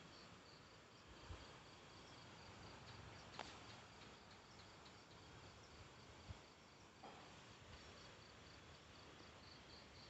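Faint night insect chirping, a cricket's short high chirp repeated evenly about three times a second, with a few soft clicks.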